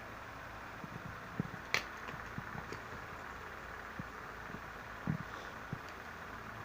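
Fidget toy being handled and pressed: a scatter of soft pops and light clicks, one sharper click near two seconds in, over a steady background hiss.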